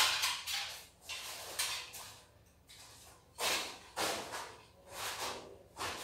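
Irregular rustling and scraping bursts of flexible aluminium duct and a duct connector being handled and fitted, several short noisy swishes with quiet gaps between.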